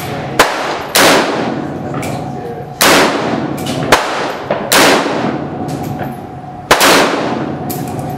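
Saiga AK-pattern rifle in 7.62x39 firing slow, aimed semi-automatic shots from a bench rest: four loud shots about two seconds apart, each trailing off in a ringing echo. Two shorter, sharper cracks fall between them.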